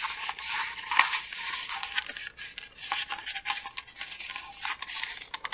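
Paper plate crinkling and crackling as it is folded over and rolled into a cone by hand, with many small sharp creasing clicks.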